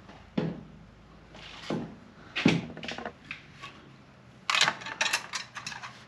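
Hand tool clicking and knocking against the radiator fan shroud and its bolts: a few separate knocks, then a quick run of clicks about four and a half seconds in.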